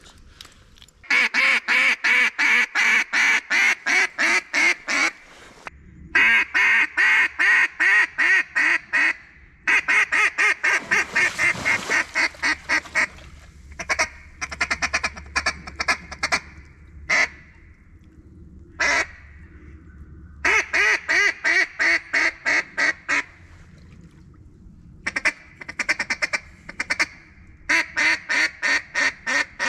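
Hand-blown mallard duck call, close and loud: long runs of quacks in quick succession, a fast rolling feed chatter about ten to thirteen seconds in, then shorter runs and single quacks with pauses between. Calling to ducks in sight, trying to bring them in.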